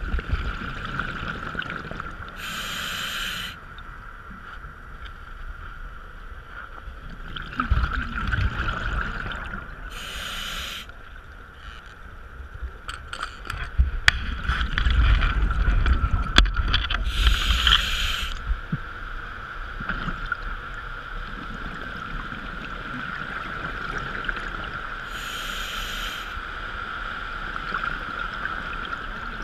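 Scuba diver breathing through a regulator, recorded underwater: a short hiss about every seven and a half seconds, four in all, with low bubbling rumbles between some of them, over a steady high-pitched hum.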